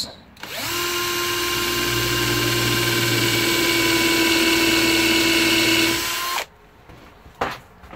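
Cordless SKIL drill spinning a Ryobi countersink bit into a wood block for a test countersink. It spins up, runs steadily with a constant motor whine for about six seconds, then stops. A short knock follows about a second later.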